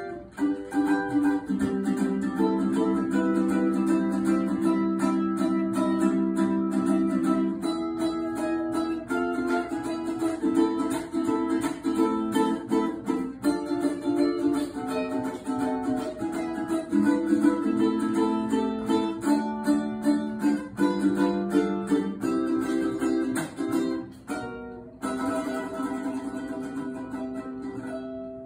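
Solo ukulele playing an instrumental tune, a picked melody over chords, with one short break in the playing about three-quarters of the way through.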